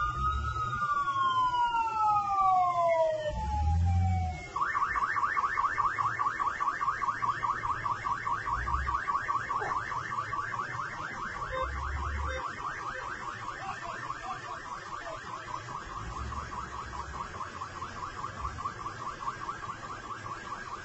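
Ambulance sirens wailing, rising and falling in pitch. About four and a half seconds in, the wail switches to a fast pulsing yelp, many pulses a second, which goes on and slowly fades as the convoy moves off, with occasional low rumbles underneath.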